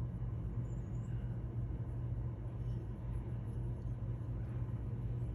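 A steady low hum and rumble with faint background noise. No distinct events stand out.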